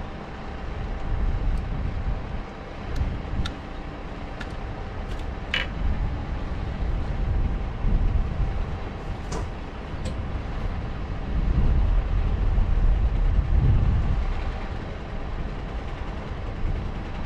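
Outdoor harbour-side background: a low, uneven rumble with a faint steady hum for the first ten seconds or so, and a few sharp light clicks between about one and ten seconds in.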